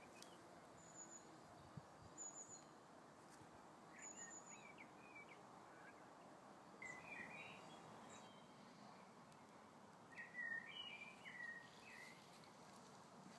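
Faint songbirds in a garden: a short high trill repeated three times, then several lower chirping phrases, over a steady outdoor hiss.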